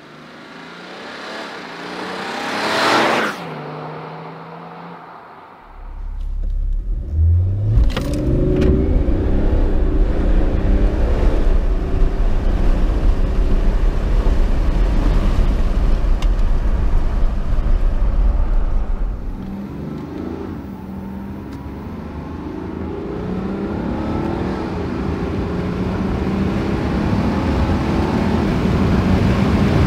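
Stage 1 tuned BMW 530d xDrive's 3.0-litre straight-six turbodiesel: the car passes close by with a drop in pitch, then, heard from inside the cabin, the engine pulls hard under acceleration with rising revs. It eases off about twenty seconds in, then builds again.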